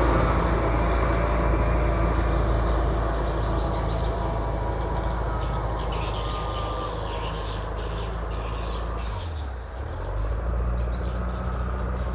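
Engine of a large paddy-field machine running steadily as it works its wheels through the field. Its level dips briefly about nine and a half seconds in, then picks back up.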